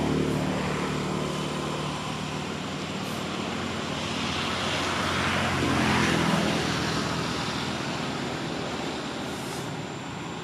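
Background road traffic: a vehicle going by, growing louder to a peak about six seconds in and then fading.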